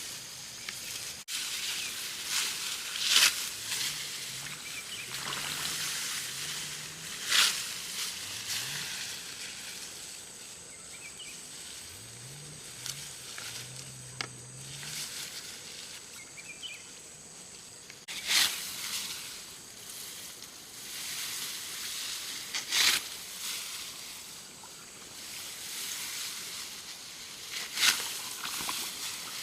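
Water sloshing and splashing, with five louder splashes a few seconds apart.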